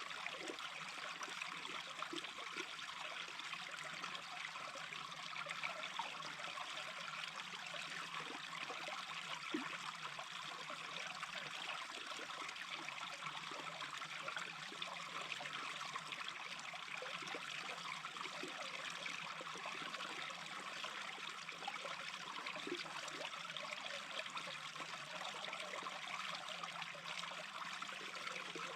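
Small brook babbling steadily over stones, with scattered small gurgles and plops in the water.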